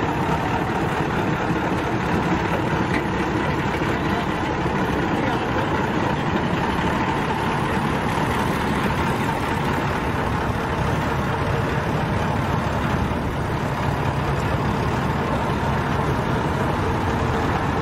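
Diesel engines of a vintage Peterbilt and other heavy trucks running steadily at low speed as they roll by in a line.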